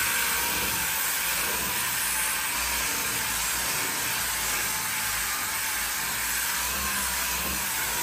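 Orbital sander running continuously against a car's front fender: a steady hiss with a faint, slightly wavering whine.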